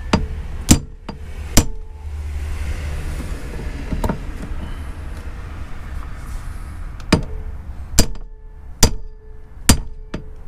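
Hammer blows on a hand impact screwdriver driving against a threadlocked Phillips screw to break it loose. About seven sharp metallic strikes, each with a brief ring: a few spaced out at first, then about one a second over the last few seconds.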